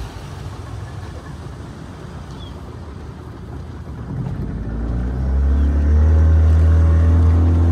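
Motorboat engine running, with a rushing wash of water and wind. The engine drone is lower for the first few seconds, then grows much louder about four to five seconds in as the throttle opens.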